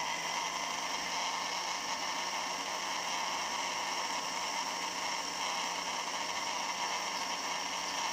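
Electric blender running steadily at full speed, blending eggs and oil into mayonnaise: an even whir over a constant low motor hum.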